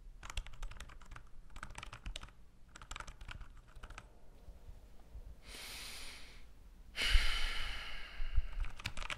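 Typing on a computer keyboard in three quick bursts of key clicks. Then comes a breath in and a long, heavy sigh of a stressed man, with a few more key clicks near the end.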